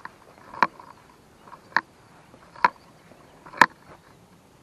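A few sharp clicks and taps from hands handling a fishing rod and its line, about one a second and four in all, with little else between them.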